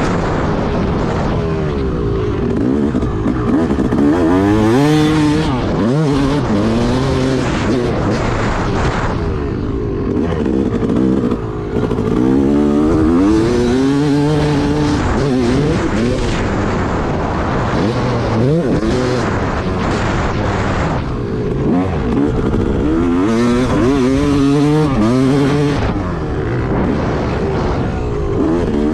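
Yamaha YZ250 single-cylinder two-stroke dirt bike engine being ridden hard on a motocross track, revving up, easing off and revving up again every few seconds as it goes through the gears. The freshly rebuilt engine revs out strongly and cleanly, with good snap.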